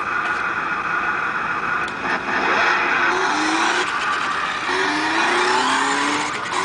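Remote-control toy Corvette's electric motor and gears whirring as it drives, rising in pitch twice in the second half as it speeds up.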